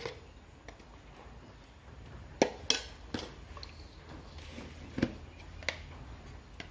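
Kitchen utensils and dishes clinking: about five short, sharp clinks and knocks, the loudest about two and a half seconds in, as powdered spices are added to the tripe.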